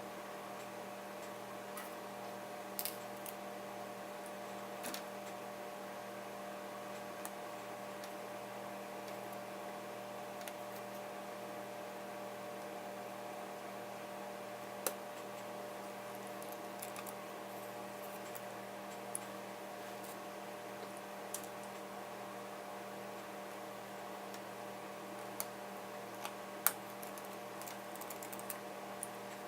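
A steady electrical hum of several held tones, with sparse small clicks and taps of a laptop cooling fan and its tiny screws being handled and set in place, a few sharper clicks near the end.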